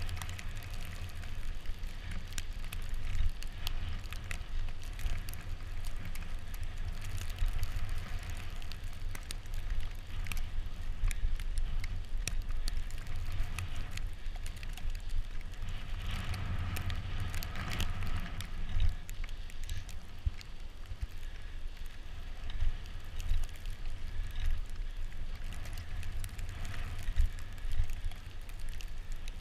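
Bicycle tyres rolling over a snow-covered road with a crackly hiss, over a constant low rumble of wind on the microphone.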